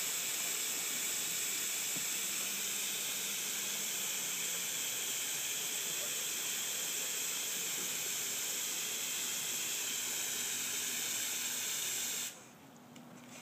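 A steady high-pitched hiss that cuts off suddenly near the end.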